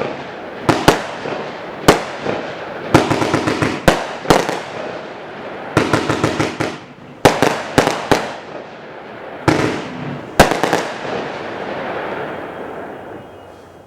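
Consumer firework cake (a multi-shot battery) firing: sharp bangs, some single and some in quick crackling clusters, with the shots ending about ten seconds in. The echo and crackle then fade away.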